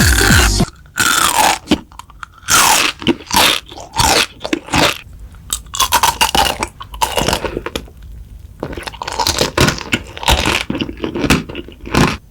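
Pop music cuts off under a second in. After that come close, irregular crunches of something crisp being bitten and chewed, with short pauses between bites.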